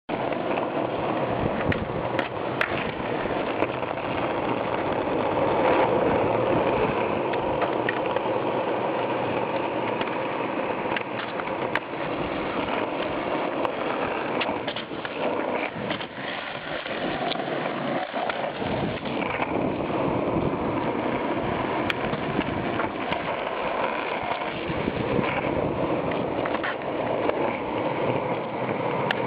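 Skateboard wheels rolling over asphalt, a continuous rough hiss, with a few sharp clacks of the board on the ground.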